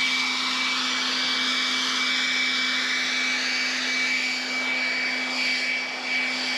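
Handheld leaf blower running steadily, blowing sand and debris out of a crack in asphalt, with a rush of air, a steady high whine and a low hum.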